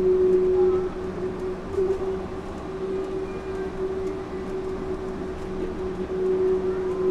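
Yurikamome rubber-tyred automated train running between stations, heard from inside the car: a steady humming tone from the drive over the rolling noise. It dips in level about a second in and comes back up near the end.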